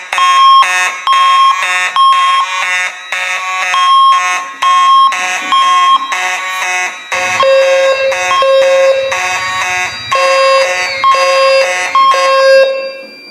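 Fire alarm evacuation tone sounding in the temporal-three pattern: three half-second pulses, then a pause, repeating, the standard signal to evacuate. The tone drops to a lower pitch about seven seconds in.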